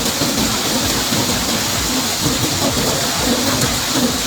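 Rain falling steadily, a constant even hiss with no breaks.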